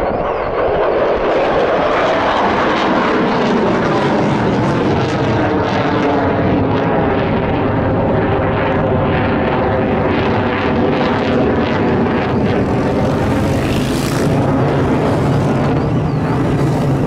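General Dynamics F-16 Fighting Falcon's single jet engine running loud as the fighter flies a display overhead. The sound is a steady noise with tones that glide in pitch as the jet moves through the sky.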